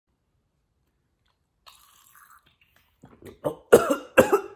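A man coughing: a run of coughs starting about three seconds in and growing louder. He is choking on water that went down the wrong way.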